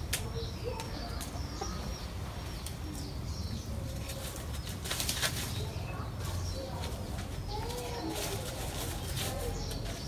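Rooster mounting a hen to mate, with a flurry of wing flaps about halfway through and scattered scuffs in the dry leaves. Soft wavering chicken calls come in the second half.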